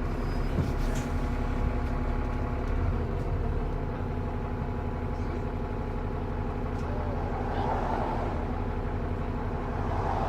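TransBus Trident double-decker bus's diesel engine running steadily, a constant low rumble with steady higher tones above it.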